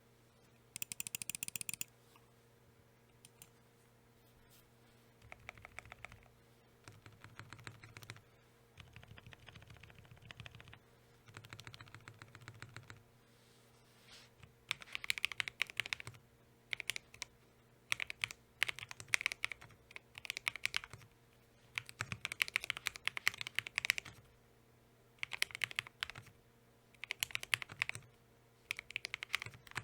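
Akko ACR61 mechanical keyboard with lubed Akko CS Crystal switches and Lumia stabilizers being typed on in bursts of quick keystrokes with short pauses between them. There is a very fast flurry of keystrokes about a second in, softer typing through the first half, and louder typing from about halfway on, over a faint steady hum.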